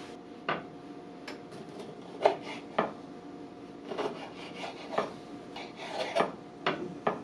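Orange being peeled and cut with a kitchen knife on a wooden cutting board: irregular short knocks and scraping strokes of the blade against the board.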